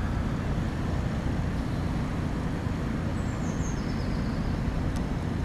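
Steady low background rumble, like distant traffic or location noise, with no speech.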